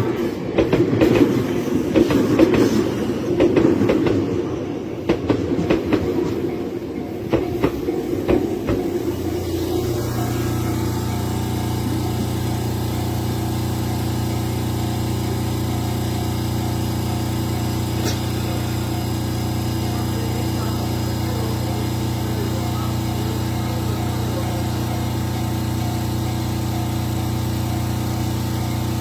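Tobu Tojo Line electric train running past, its wheels clacking over rail joints for about nine seconds. The train noise then gives way to a steady low hum.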